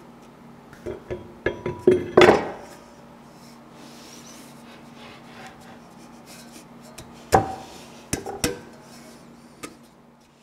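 Metal clunks and scrapes as an electric motor, newly fitted with bearings, is set onto and worked into place on a DoAll milling machine head. A quick cluster of knocks comes about two seconds in, the loudest of them, and a few more follow later.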